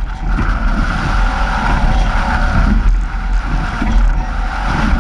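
Strong wind buffeting the microphone and water rushing past the hull of a Nacra 17 racing catamaran sailing hard in heavy wind and waves, with a steady high hum running through it.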